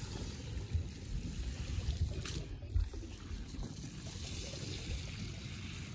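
Water trickling and splashing off a wet dol bag net as it is hauled by hand over the side of a fishing boat, with a few light knocks. A low wind rumble on the microphone runs under it.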